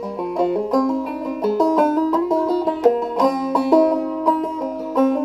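Five-string banjo played clawhammer style in fDGCD tuning pitched a little low: a continuous crooked-metre tune of quick plucked notes with the drone string sounding between melody notes.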